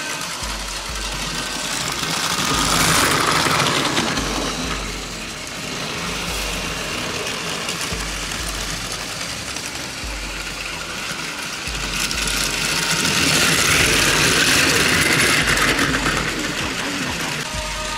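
Plarail battery-powered toy trains running on plastic track: a steady small-motor whir with the rattle of wheels on the track. It grows louder about 3 seconds in, and again from about 12 to 16 seconds in, as a train passes close by.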